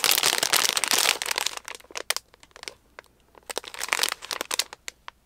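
Clear plastic resealable bags crinkling as a handful of them are shuffled and fanned out in the hands. A dense stretch of crinkling lasts about the first second and a half. Scattered small rustles and clicks follow, then a second burst of crinkling about three and a half seconds in.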